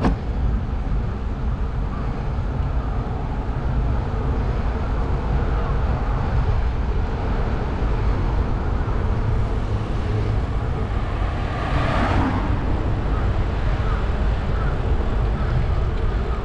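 Steady low rumble and wind noise from moving along a road, with a brief louder rushing swell about twelve seconds in.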